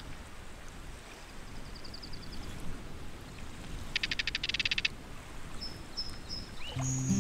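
Forest ambience: a steady low background with a faint pulsed call early on and, about four seconds in, a loud rapid train of about ten pulses a second from a calling animal, followed by a few short high chirps. Guitar music comes in near the end.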